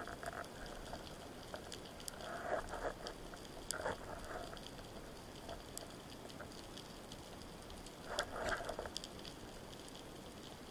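Underwater ambience heard through a camera housing while swimming: a faint steady hiss with scattered sharp clicks and crackles, and a few short louder rushes of water noise, about two seconds in, near four seconds and about eight seconds in.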